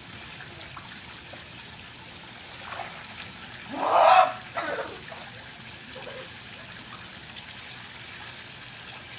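Swimming pool water trickling steadily. About four seconds in comes a short, loud shout, with a smaller one just after.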